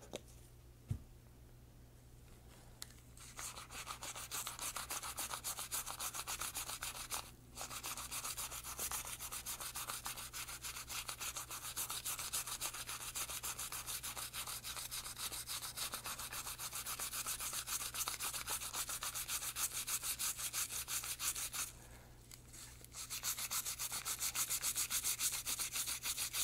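Toothbrush scrubbing lead and carbon fouling off a foam-soaked aluminum rimfire suppressor part in rapid back-and-forth strokes. It starts a few seconds in after a single click, pauses briefly twice, and comes back louder near the end.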